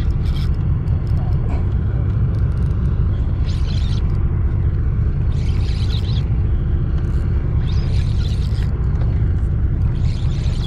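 Steady low rumble of a boat engine running, with short hissing swishes about every two seconds.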